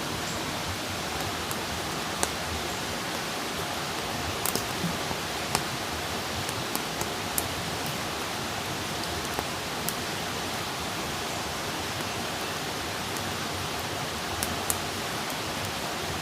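Wood campfire burning: a steady hiss with scattered sharp crackles and pops, several of them clustered a few seconds in and two more near the end.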